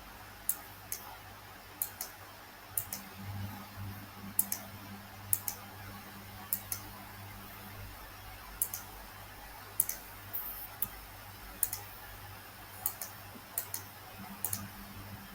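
Computer mouse clicking at irregular intervals, mostly single clicks with a few quick pairs, over a faint steady low hum.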